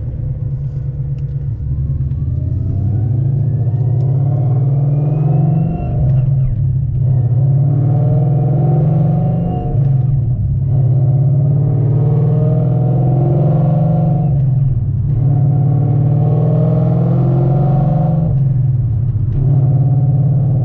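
2011 Mustang GT's 5.0 V8 pulling hard under acceleration, heard from inside the cabin. The engine note rises, then drops briefly about every four to five seconds as the manual gearbox is shifted up. No bearing chatter is heard with the new pilot bearing fitted.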